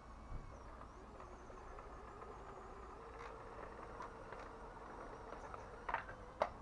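Small electric motor and gearbox of an HBX 2098B Devastator mini RC crawler whining faintly and steadily as it drives, joined about halfway through, with two sharp knocks near the end as it bumps against a brick step.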